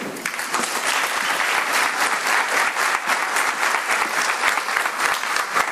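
Audience applauding, a steady patter of many hands clapping that fades away at the end.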